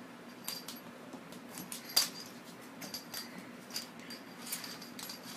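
A small metal object clicking and clinking on a hardwood floor as a kitten bats it around: a run of irregular sharp clinks with a brief metallic ring, the loudest about two seconds in, over a low steady hum.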